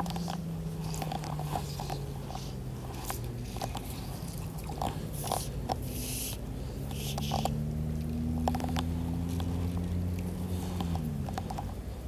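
Fly-fishing gear and the angler's hands handled close to the microphone while a small chub is played and swung in: scattered sharp clicks and brief rustling, over a low steady hum that slides in pitch near the end.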